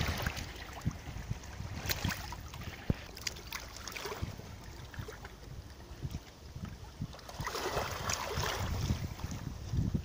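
Small waves lapping onto a sandy, pebbly shore, with little splashes and trickles. The wash swells once, about three-quarters of the way in, over a low rumble of wind on the microphone.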